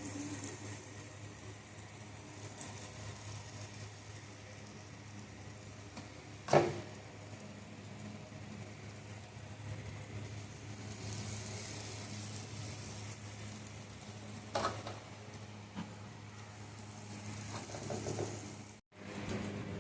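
Urad dal fritters frying in hot vegetable oil in a kadai: a steady sizzle. A sharp knock comes about six and a half seconds in and a smaller one near fifteen seconds, and the sound drops out for a moment near the end.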